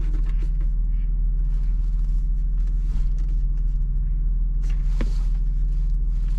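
Steady low motor hum from the car setup, unchanging throughout, with light handling noise and a sharp click about five seconds in.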